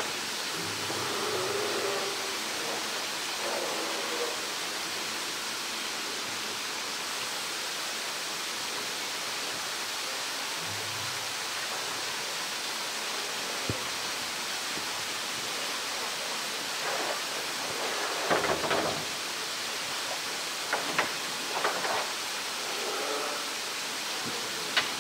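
Steady rushing background noise, with a few dull knocks and bumps from a polar bear shifting its weight on a plastic drum, the loudest cluster about two-thirds of the way through. Faint voices now and then.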